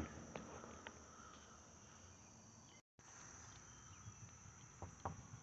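Near silence with a faint, steady high-pitched chorus of crickets, a few faint clicks, and a momentary dropout about three seconds in.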